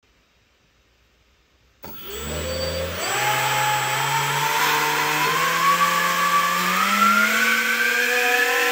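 A 3D-printed electric ducted fan starts up about two seconds in and spools up under rising throttle, its whine climbing steadily in pitch over a rushing of air.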